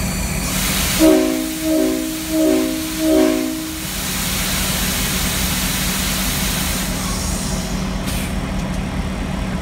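Locomotive multi-chime air horn sounding four short blasts, each a chord of several tones, over the steady running hum of the locomotive. A brief hiss comes just before the horn and again near the end.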